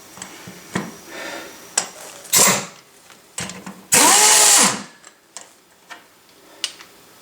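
A cordless power drill with a socket spins briefly, once for a moment about two and a half seconds in and again for under a second about four seconds in, its motor pitch rising then falling, amid scattered metal clicks.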